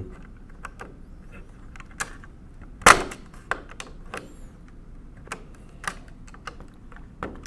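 Irregular small metallic clicks and taps of thin pliers working a nut on the carriage of a 1920s Monroe mechanical calculator, with one sharp, louder click about three seconds in.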